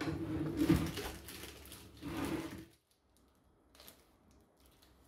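Kashkaval cheese being grated on a hand grater: rasping strokes that stop a little under three seconds in, followed by one faint click.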